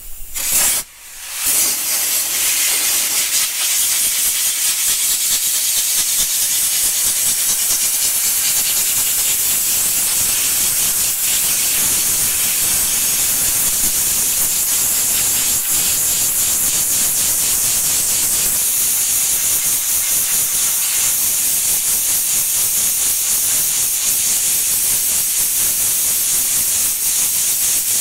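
Sandblaster blasting abrasive grit onto a rusty sheet-steel grille panel to strip the rust: a loud, steady hiss of air and grit. A short burst and a brief pause come about a second in, then the blast runs without a break.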